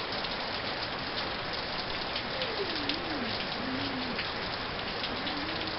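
Steady rain falling on surfaces, with many individual drops ticking through the hiss. A faint wavering call sounds about halfway through and again near the end.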